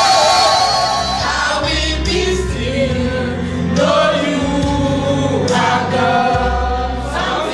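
Gospel song sung by a group of voices with instrumental backing, and a sustained low bass entering about a second in.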